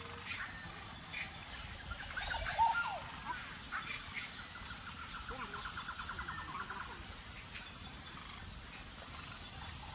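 Open-air pondside ambience of small birds chirping and insects calling, with a fast rattling trill for a couple of seconds in the middle.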